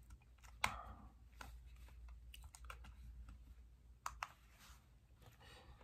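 Faint, scattered sharp clicks and light handling noise, two of them close together about four seconds in, as a fingertip pulse oximeter is clipped on and switched on.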